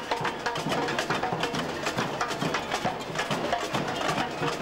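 Samba bateria playing a fast samba rhythm on parade: massed drums with sharp wooden and metal hand percussion in a dense, steady beat.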